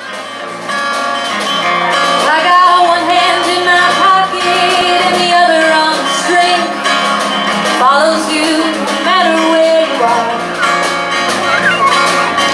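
Live band playing the opening of a pop-folk song, with acoustic and electric guitars over drums and a woman singing wordlessly at the mic; the music fades in at the start.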